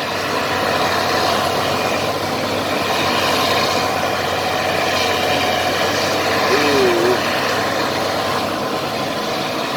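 Diesel engine of a 70LE crawler bulldozer running hard under heavy load, a steady heavy drone: the machine is straining to climb a steep sand slope and will not go up.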